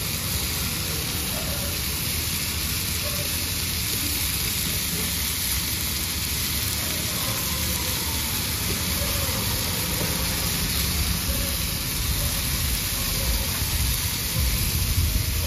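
Vegetables frying in a hot iron wok on the stove: a steady sizzling hiss with a low rumble underneath.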